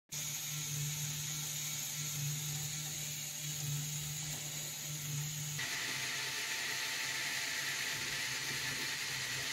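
Small Lego Technic electric motor driving plastic gears and linkages, running with a steady whir. About halfway through it changes abruptly to a second motor-driven Technic mechanism with a higher, brighter whir.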